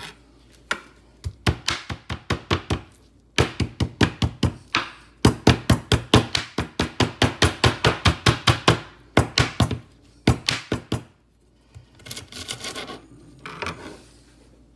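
Kitchen knife chopping and bruising lemongrass: rapid, even strikes about four a second, in runs with short pauses, and a few lighter strikes near the end.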